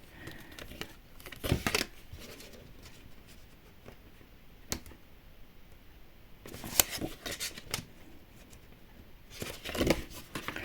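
Small kit parts being handled on a tabletop: scattered clicks, taps and rustles, with one sharp click a little before halfway and a cluster of handling noises in the second half.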